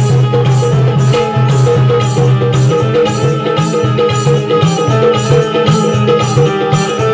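Loud music with a steady drum beat and heavy bass, played through a PA sound system.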